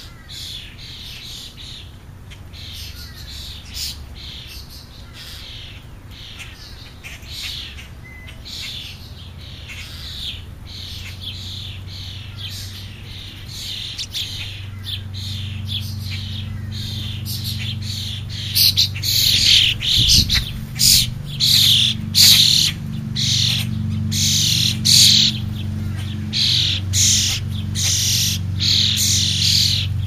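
A flock of birds at a ground feeding spot, calling over and over in short calls. The calls become louder and more frequent in the second half. A steady low hum runs underneath from about halfway.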